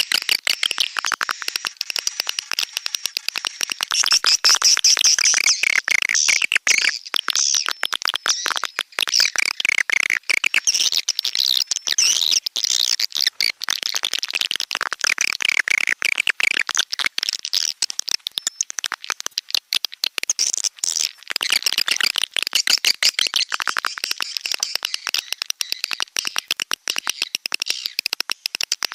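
Recorded swiftlet calls: a dense chatter of rapid rattling clicks and twittering chirps that keeps going without a break. This is a walet call track of the kind played to lure swiftlets into a nesting house.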